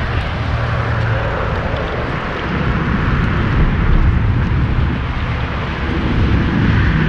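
Wind buffeting an outdoor microphone: a steady low rumble with a hiss of wind and water over it.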